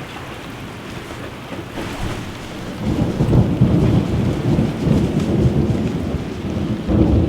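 Thunder rumbling over steady rain. The rumble builds sharply about three seconds in and keeps swelling and fading, with another peak near the end.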